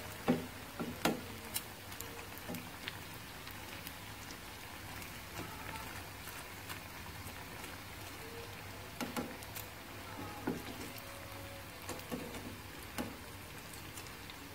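Breadcrumb-coated kepok banana pieces deep-frying in hot oil: a steady sizzle with scattered small pops. Metal tongs knock against the pan a few times as the pieces are turned, loudest near the start and around the last third.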